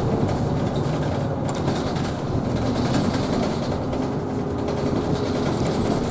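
Interior running noise of an Isuzu Erga Hybrid city bus on the move, a steady low hum with road noise, with a faint whine rising out of it for about a second, about four seconds in.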